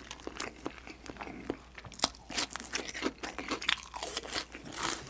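Close-miked crunching and chewing of a deep-fried dumpling: a run of crisp crackles and clicks as it is bitten and chewed.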